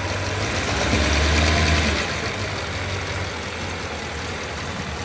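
1971 Maserati Indy 4700 America's 4.7-litre V8 running at idle. About a second in it briefly rises in pitch and level, as the revs are lifted, then settles back to a steady idle.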